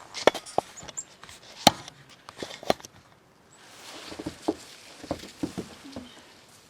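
A bird feeder being handled and hung: a run of sharp clicks and knocks in the first three seconds, then softer crunching with a few light knocks, like steps in snow.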